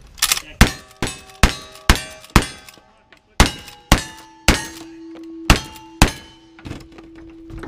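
Lever-action rifle fired about ten times in quick succession with two short pauses, each shot followed by the ring of a hit steel target. One plate rings on steadily through the second half.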